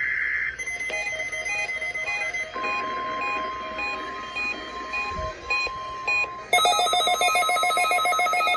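NOAA Weather Radio warning alarm during the weekly test: a steady alert tone sounds over a run of short repeating electronic beeps. About six and a half seconds in, a louder, rapidly pulsing electronic alarm from a weather radio receiver takes over.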